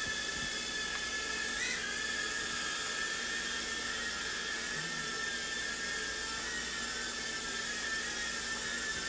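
JJRC H56 TaiChi mini quadcopter's small motors and propellers whirring in flight, a steady high whine with a brief rise in pitch a little under two seconds in.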